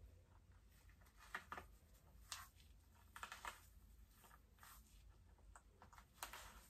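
Near silence with several faint, brief rustles as a Denman brush is drawn through wet, gel-coated curly hair, stroke by stroke.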